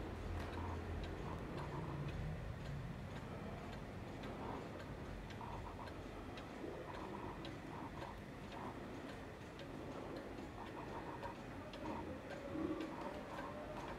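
A Hönes 8-day mechanical cuckoo clock ticking quietly and steadily as its pendulum escapement beats.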